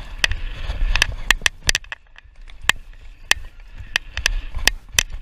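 Mountain bike being ridden over a rough trail: irregular sharp clunks and rattles from the bike hitting rocks and roots, over a steady low rumble.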